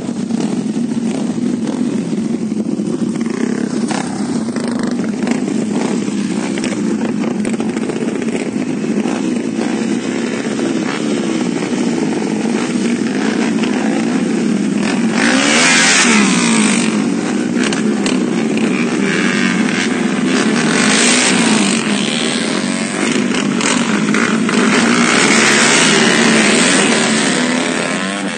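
Yamaha Exciter 150 motorcycle engines running steadily, with the engine noise swelling louder about halfway through and again near the end.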